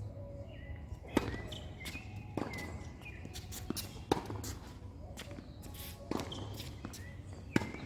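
Tennis ball being struck by rackets and bouncing on the court: several sharp knocks a second or more apart, the hardest about a second in, about four seconds in and near the end.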